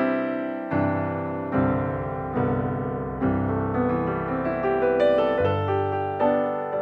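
Background piano music: chords struck every second or so, each fading before the next.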